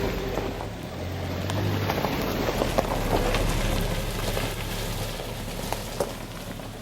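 Suzuki Jimny JB64 driving on an unpaved forest road: its engine runs at a low steady hum under the crunch of tyres on gravel, with scattered small knocks and rattles.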